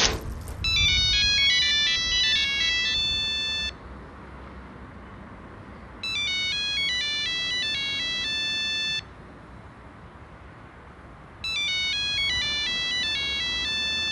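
A phone ringtone plays a short melody of high electronic notes three times, each run about three seconds, with pauses between. A single sharp knock comes right at the start.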